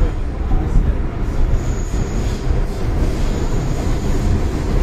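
MTR M-Train metro train running on the Tseung Kwan O line, heard from on board: a steady low rumble of wheels on track, with a brief faint high whine about two seconds in.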